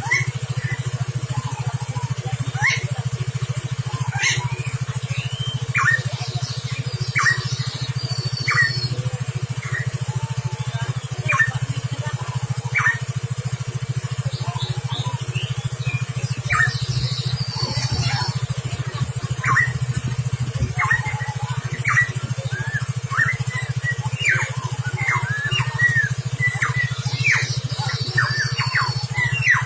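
Cucak timor songbird giving short, sharp chirps, scattered at first and coming in a rapid run near the end, with a few higher twittering phrases between them. A steady low hum runs underneath.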